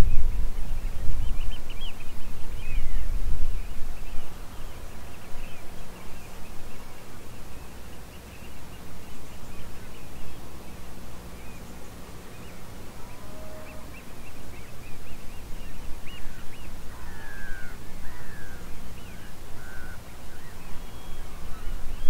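Wild birds chirping and twittering in many short high calls, with a few lower, falling calls in the last third. Wind rumbles on the microphone, strongest in the first few seconds.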